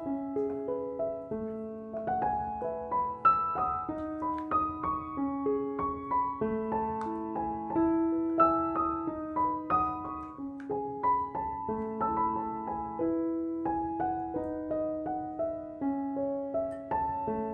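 Background piano music: a melody of single notes over slower, lower notes.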